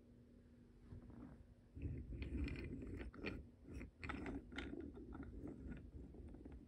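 Wooden toy train rolling along wooden railway track: a faint low rumble with light irregular clicks, starting about two seconds in and fading out near the end.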